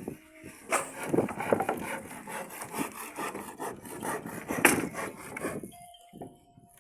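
Hand saw cutting wood in repeated back-and-forth strokes, stopping shortly before the end.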